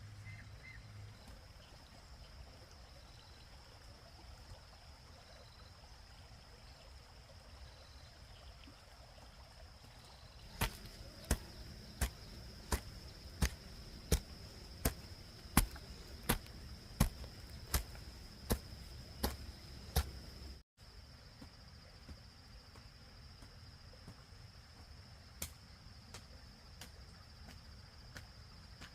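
A run of about fourteen sharp knocks, evenly spaced at roughly one and a half a second, stopping suddenly. A faint steady high-pitched whine runs underneath, and there is one more knock near the end.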